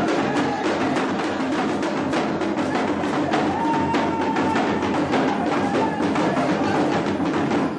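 Live Yoruba festival drumming: a hand drum beaten in a quick, steady rhythm of sharp strokes that runs on without a break.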